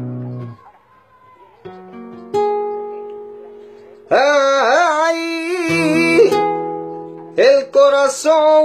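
Flamenco acoustic guitar chords played and left ringing, then a male singer comes in about four seconds in with a long, wavering melismatic vocal line over the guitar, breaking off and starting again near the end.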